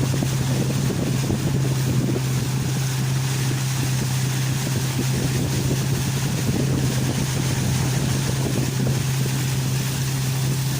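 A small boat's motor running at a steady speed, a constant low hum, with wind buffeting the microphone and water rushing past the hull.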